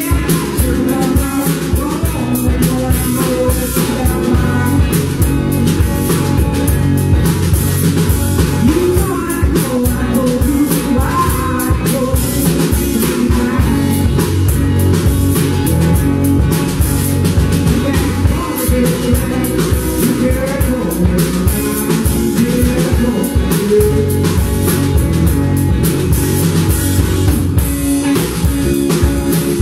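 Live blues-rock band playing: electric guitars over a drum kit, steady and loud throughout.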